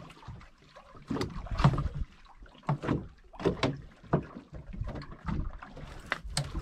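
Water slapping and splashing against the hull of a small boat drifting at sea, in irregular short knocks over a low wind rumble.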